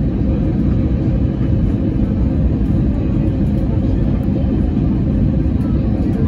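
Airliner cabin noise on the landing approach: a steady low rumble of engines and rushing air, with a faint steady hum riding on it.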